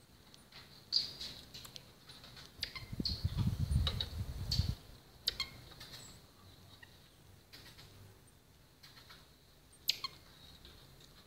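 Small animals foraging: scattered short high squeaks and sharp clicks, with a low rumble about three seconds in that lasts under two seconds.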